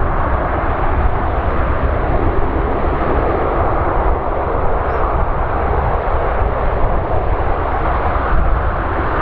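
Lockheed C-130H Hercules's four Allison T56 turboprop engines running steadily as the aircraft taxis, a loud, even noise with a strong low rumble.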